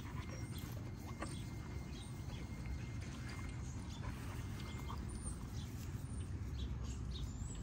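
XL bully dogs moving about on grass: scattered faint soft footfalls and small ticks over a steady low rumble.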